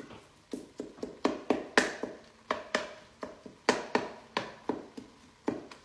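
Wooden spurtle knocking and scraping against the Ninja Foodi's inner pot while stirring and breaking up browning ground beef and onions: a quick, uneven run of knocks, about three a second.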